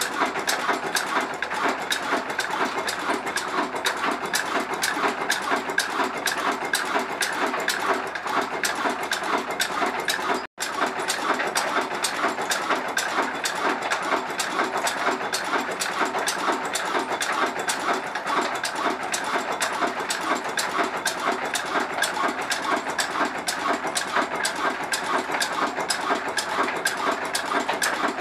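Old Ruston Hornsby stationary diesel engine running steadily, with an even, rapid clatter of ticks from its valve gear and fuel pump. The sound cuts out for an instant about ten seconds in.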